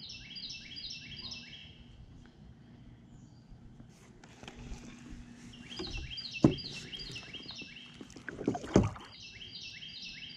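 Kayak being paddled, with water noise from the strokes and two sharp knocks of the paddle against the hull, about six and a half and nine seconds in. A bird sings quick, repeated high phrases several times.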